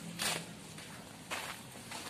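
Footsteps scuffing on brick paving, two steps about a second apart.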